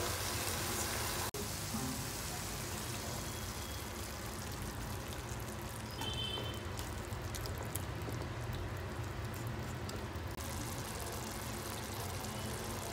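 Chicken curry sizzling and simmering in a nonstick pan, a steady hiss, with a moment where the sound cuts out about a second in.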